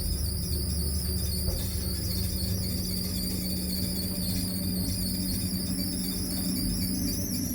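Water-damaged elevator running, with a steady low hum under a continuous high, wavering scratchy squeal: a noise the lift has made since it was flooded.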